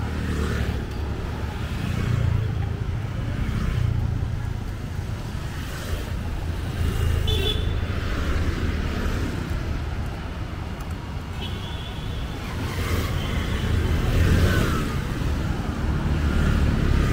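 Street traffic: motor scooters and motorcycles passing on a road, their engines making a steady low rumble that grows louder near the end as a group of scooters comes closer.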